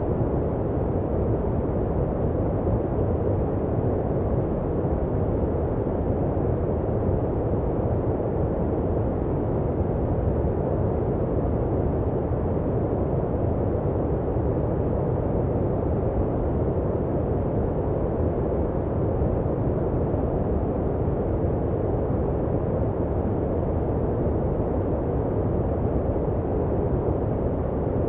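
Steady generated sleep-aid noise, deep and muffled, with most of its weight in the low end and almost no high hiss, closer to brown noise than to bright white noise. It never changes in level or colour.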